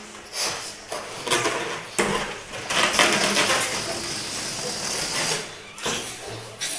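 Several children blowing up rubber balloons. Rubber squeaks and handling rustles come first, then from about two seconds in there is a long stretch of hard breath puffing into the balloons.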